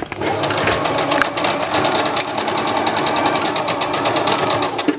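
Electric domestic sewing machine stitching a straight seam through cotton fabric, the needle running at a steady fast rate, stopping just before the end.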